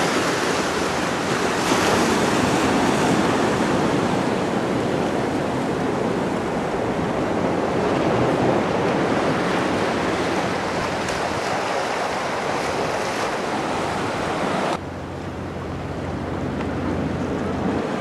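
Ocean surf washing against the rocks of a stone jetty and shore, a continuous hiss, with wind buffeting the microphone as a low rumble. About fifteen seconds in the sound changes abruptly and the upper hiss drops away.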